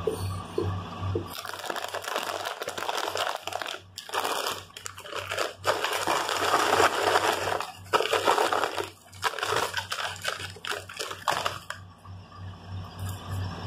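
Crinkly plastic chip bag rustling while tortilla chips are shaken out and slide onto a plate, starting about a second in and stopping shortly before the end, with a few short pauses.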